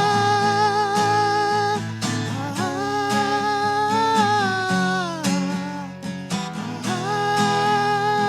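Music: an instrumental break in a song, guitar chords under a lead line of long held, slightly wavering notes that slide down about halfway through.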